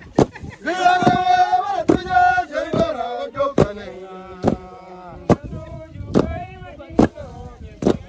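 A group of men chanting together in a steady rhythm while beating harvested grain with wooden-headed threshing sticks. Each stroke lands as a sharp thud, a little more than once a second.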